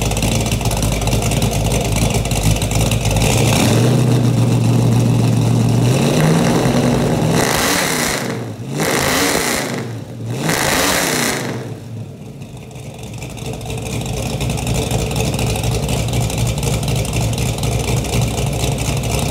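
1970 Ford Mustang Mach 1's V8 exhaust through SLP Loudmouth mufflers: idling, then held at a higher idle about four seconds in, blipped twice, and settling back to a steady idle.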